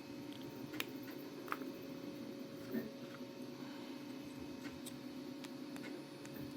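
A few faint clicks and taps of small 3D-printed plastic parts being handled, the clearest about one, one and a half and three seconds in, over a steady low hum.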